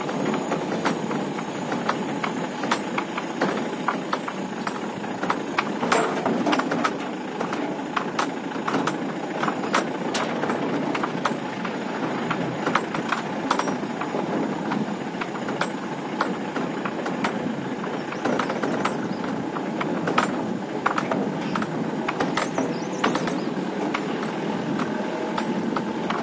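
Mahindra Bolero pickup driving over a rough, stony dirt track, heard from inside the cab: steady engine and road noise with frequent sharp knocks and rattles as the body jolts over ruts and stones.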